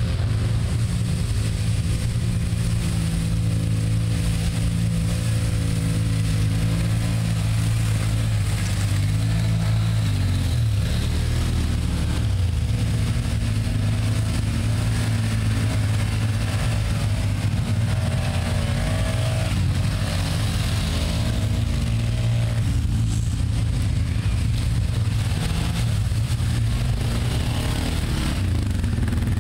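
Several ATV engines running and revving as the quads plough through deep bog mud. A steady low engine note holds throughout, while other engines rev up and down, most clearly past the middle.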